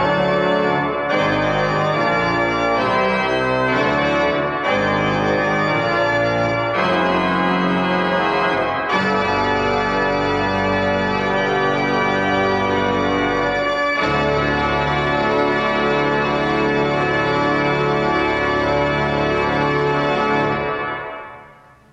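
Zanin pipe organ playing full chords over a deep bass, the chords changing every few seconds. About two-thirds through, it settles on a long final chord that is released near the end, the sound dying away in the room.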